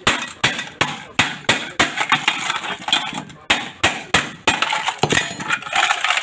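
Rapid hammer blows, about two to three a second, with clinking and crumbling, chipping apart the inside of a cheap mini welding machine. The casing is apparently packed with cement in place of real components.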